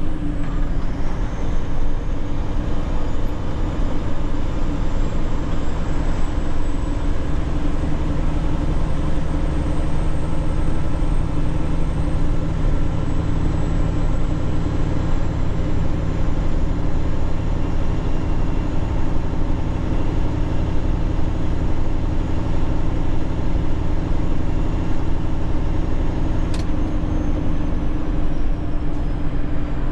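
Steady engine drone of a tanker truck heard from inside the cab, unchanging throughout, with one short click near the end.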